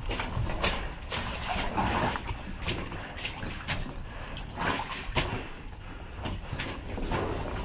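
Footsteps through mud and shallow water with gear rustling, broken by scattered short knocks.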